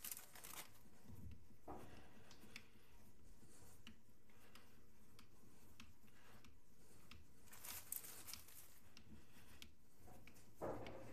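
Hand-cranked meat grinder crushing dry cookies: faint, uneven crunching and crackling with scattered clicks, and a few louder bursts, the loudest near the end.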